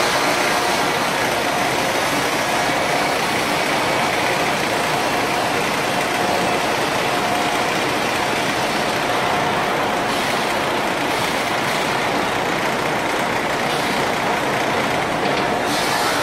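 Steady machinery noise of a running fiber cement board production line: an even hiss and hum with a faint steady whine in it.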